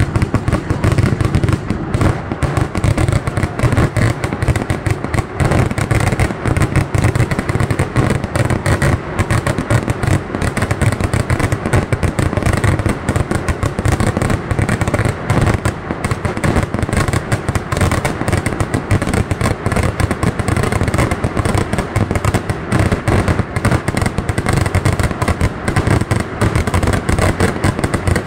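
Vedikettu fireworks: firecrackers going off in a dense, unbroken barrage of bangs, one after another too fast to count, with a heavy low thud under them.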